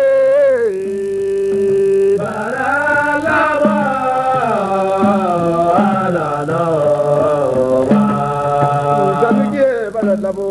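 Man singing a Hausa song, one long held note for about two seconds and then a wavering line that slides up and down, with drum strokes beneath.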